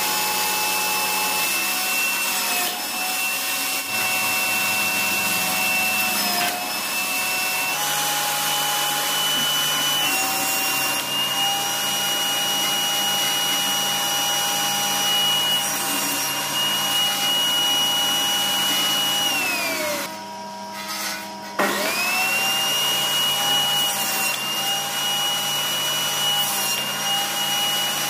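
Table saw running with a high motor whine, its pitch sagging briefly now and then as wooden strips are cut. About two-thirds of the way in it is switched off and winds down, then about a second and a half later it is switched back on and spins up to speed again.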